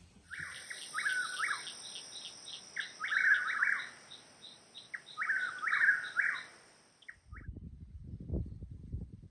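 A small bird calling in three bursts of quick chirps, over a steady high whine. About seven seconds in the calls and whine stop, and a low rumbling noise takes over.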